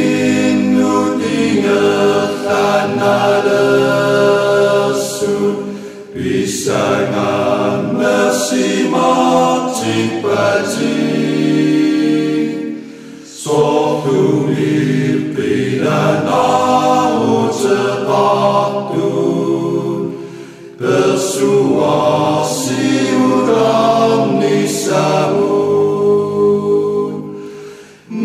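Vocal music: several voices singing together, chant-like, in long phrases broken by brief pauses about every seven seconds.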